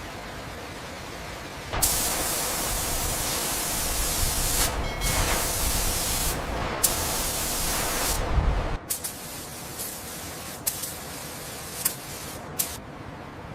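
A loud spray hiss that starts about two seconds in, breaks off briefly a couple of times and cuts off suddenly after about seven seconds. Then come a few scattered clicks.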